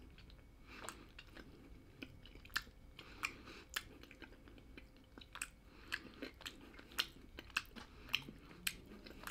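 A toothless person chewing a hard snack stick with the gums: faint, soft mouth-chewing with irregular small clicks and crunches, about one or two a second.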